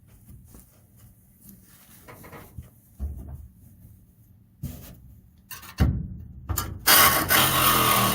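Pneumatic air chisel working on the spot welds of a car's torsion-bar box bracket. There are quiet handling sounds first, then the tool fires in two short blips, and about seven seconds in it starts running continuously and loudly.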